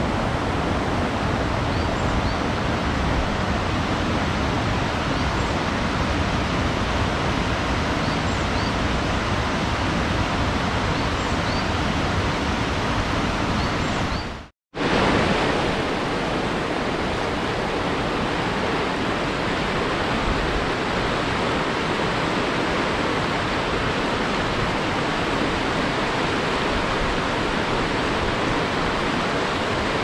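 Steady rushing of river water, with a few faint high chirps in the first half. About halfway through the sound fades to a moment of silence, then the steady rush of a fast mountain river flowing over stones comes back.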